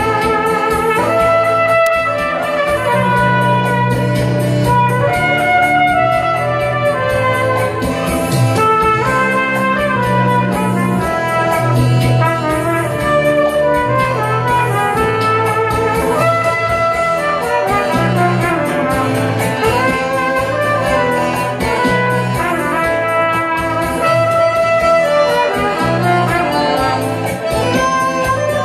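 Trumpet playing a melody over an accompaniment with held low bass notes.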